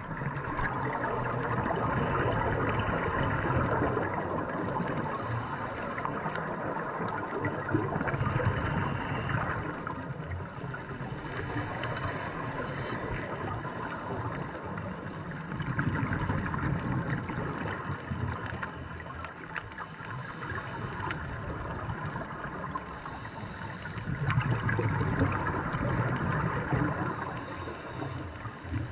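Scuba diver's exhaled bubbles and regulator breathing heard through an underwater camera housing: a continuous bubbling hiss that swells louder in several long gurgling bursts.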